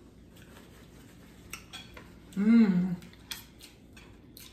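Cutlery clinking against a dish a few times during a meal of spaghetti, with one short hummed 'mm' from a voice about two and a half seconds in.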